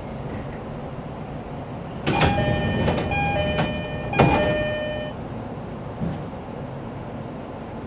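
Doors of a JR East E531 series train car sliding with a thud while the two-note door chime sounds three times, a higher note then a lower one. The car's steady background rumble runs underneath.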